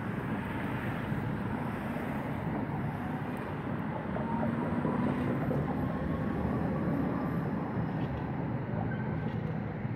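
Steady city traffic rumble. A vehicle passes in the middle, with a faint whine that rises slightly.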